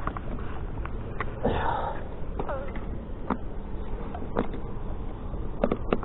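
Several short, sharp clicks and taps over a steady low background rumble, with a brief breathy noise about a second and a half in.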